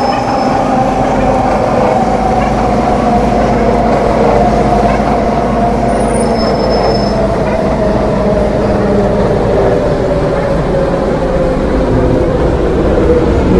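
MTR M-Train electric multiple unit running on the line with a steady rumble of wheels on rail. Its motor whine falls slowly in pitch as the train slows on the approach to the station. A brief faint high beep sounds about six seconds in.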